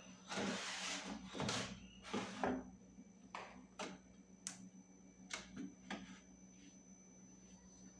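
An air fryer basket being slid into an oven-style air fryer: two scraping slides in the first couple of seconds, then a run of short clicks and knocks as it is set in place.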